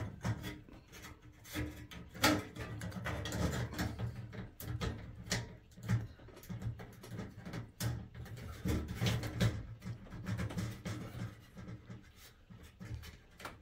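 Scattered small clicks, taps and rubbing as plastic lamp holders and their wires are handled and pushed into the sheet-metal channel of a fluorescent light fixture, over a faint steady low hum.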